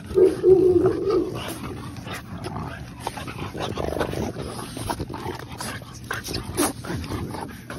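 A French Bulldog gives a wavering, whiny vocal sound lasting about a second near the start. After that come scattered small clicks and rustling as the puppies jostle and mouth at a hand petting them.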